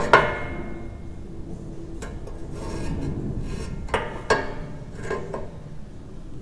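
Metal parts being handled and positioned for a dry test fit. A sharp clank at the start rings on briefly, a stretch of scraping follows in the middle, and a few more knocks come about four to five seconds in.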